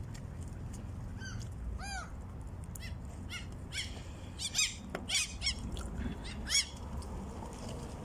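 Gulls calling: a string of short, high, arching cries, a few spaced out early and then several in quick succession between about four and seven seconds in, over a steady low rumble.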